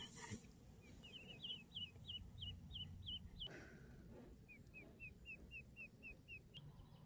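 Ducklings peeping faintly: two runs of short, quick high peeps at about three a second, the second run a little lower in pitch.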